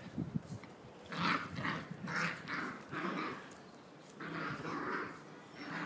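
Jagdterrier puppies play-fighting, giving a string of short growls and yaps, one every half second to a second, with a longer stretch about four seconds in.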